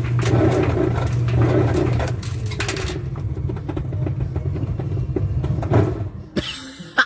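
Clothes dryer running with a steady low hum and an abnormal rhythmic noise that pulses about twice a second. After about two seconds the pulsing fades while the machine keeps running, and the sound drops off near the end.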